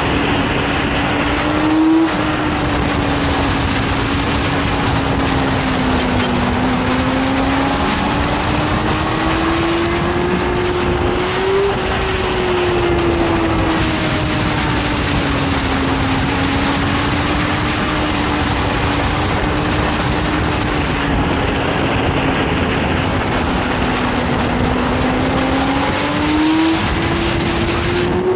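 Yamaha YZF-R6 inline-four engine running at high, fairly steady revs at speed, its pitch drifting slowly up and down through the curves, with a brief rise about two seconds in and again near the end. Heavy wind rush runs under it.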